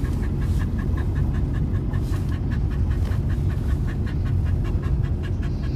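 Road noise inside a moving vehicle's cabin on a snowy road: a steady low rumble, with a quick, even pulsing of about five beats a second on top.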